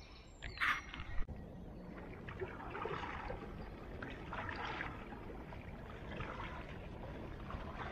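Kayak paddle strokes in calm river water: the blade dipping and pulling in a regular rhythm, swelling about every one and a half seconds, with water trickling off it.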